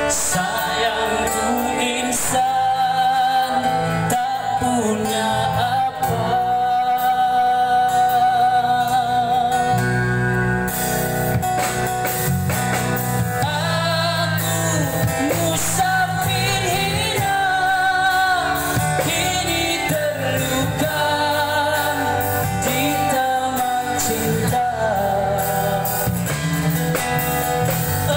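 Live street-band performance of a Malay rock song: a man singing through a microphone and PA over amplified guitars and a band.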